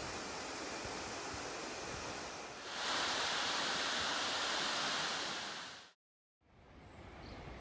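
Steady rush of falling water, louder from about three seconds in, breaking off suddenly near six seconds and coming back fainter after a brief silence.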